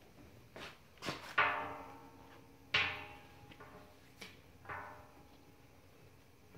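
Rubber V-belts knocking against cast-iron compressor pulleys as they are fitted by hand: several sharp clanks, the strongest about one and a half and three seconds in, each leaving the metal pulley ringing briefly before it dies away.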